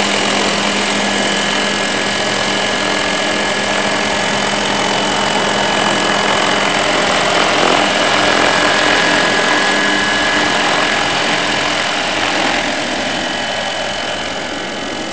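Radio-controlled scale Bell UH-1 Huey helicopter in flight, its rotor and drive running steadily with a steady whine, mixed with the scale turbine sound played by an onboard sound system through speakers glued to the canopy fiberglass. The sound grows a little fainter near the end as the helicopter moves away.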